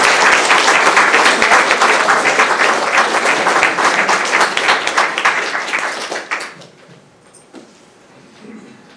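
Audience applauding: dense clapping that fades out about six and a half seconds in, leaving quiet room tone.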